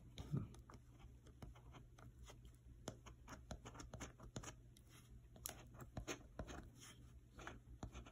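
A coin scraping the coating off a scratch-off lottery ticket in short, irregular, faint strokes.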